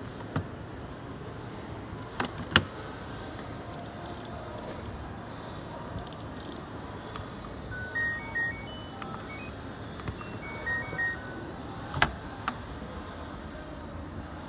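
An LG front-loading washer-dryer being handled: sharp plastic clicks and knocks from its detergent drawer and, near the end, its door being opened. Short electronic beeps from its control panel sound in two pairs about halfway through, as the program dial is turned.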